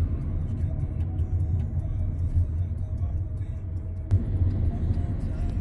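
Car cabin noise while driving slowly in town: a steady low rumble of engine and tyres, with a single sharp click about four seconds in.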